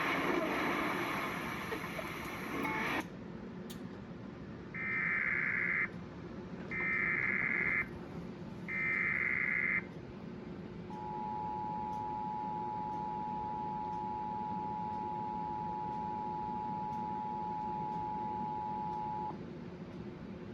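Emergency Alert System (EAS) alert retransmitted by a Trilithic EASyCAST encoder. Other audio cuts off about three seconds in. Three one-second screeching bursts of SAME header data follow, evenly spaced, then the two-tone attention signal holds steady for about eight seconds, marking a National Weather Service warning about to be read.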